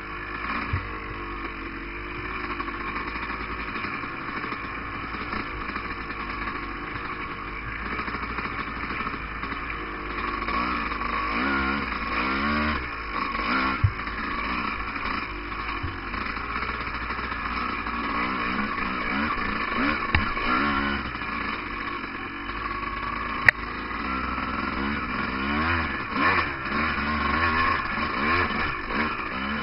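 Off-road dirt bike engine running on a trail ride, its revs rising and falling over and over as the throttle is worked, with a few sharp knocks along the way.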